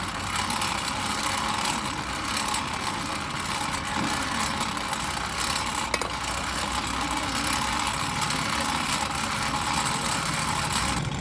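A steady machine running without change, with a single sharp click about six seconds in.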